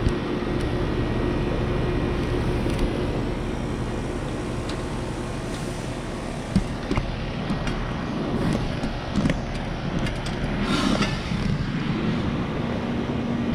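Ruud Achiever UPKB heat pump outdoor unit running through a defrost cycle: a steady compressor hum with a few sharp clicks, and a short rushing swell near the end.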